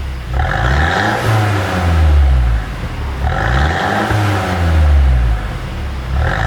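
Mercedes-Benz E200 Cabriolet engine, fitted with a pop-and-bang exhaust tune, revved twice. Each time the revs climb quickly, hold for about two seconds and fall back.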